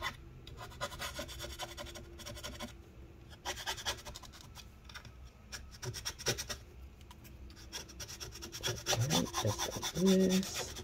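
Plastic scraper scraping battery adhesive residue off the aluminium top case of a MacBook Pro, in spells of quick repeated strokes with short pauses between them.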